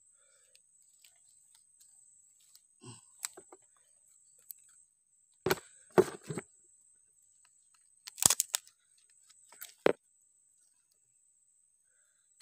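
Digging and prising in mangrove mud among roots and sticks. It makes sharp cracks and knocks in short clusters about three, six and eight to ten seconds in, under a steady high-pitched whine.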